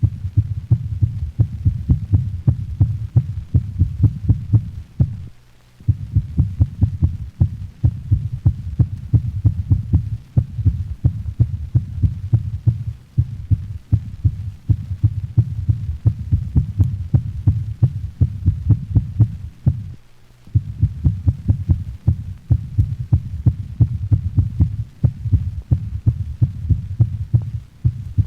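Auscultation recording of a dog's heart in atrial fibrillation: rapid, irregular heartbeats that vary in loudness from beat to beat, over a low rumble. The sound breaks off for a moment twice.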